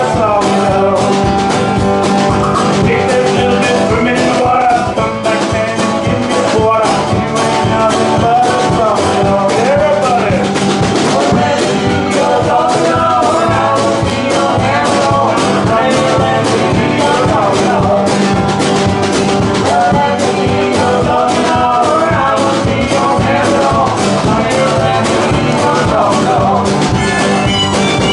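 Live acoustic band playing an up-tempo, steady-beat song on banjo, acoustic guitar, harmonica, upright bass and drum kit, with a woman singing.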